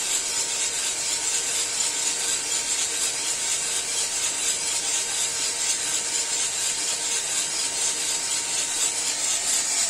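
Cormorant CR600 Electric drum coffee roaster running mid-roast: a steady, even whir with a faint constant hum, its drum turning the beans. There are no cracks yet, since the beans are nearing first crack.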